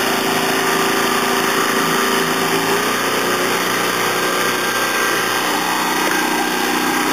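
Mercury outboard motor running steadily under load while towing a tube, with the rush of water along the hull.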